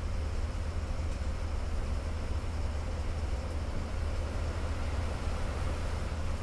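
Steady low rumble and road noise of a GSRTC luxury bus under way, with no change in pace.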